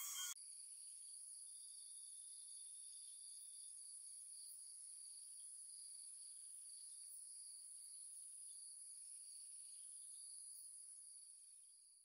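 Background music cuts off just after the start, leaving faint, steady, high-pitched trilling of crickets that fades out near the end.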